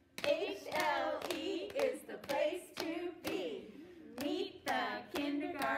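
A small group of women singing a chant-like song together while clapping their hands, with sharp claps landing in time through the singing.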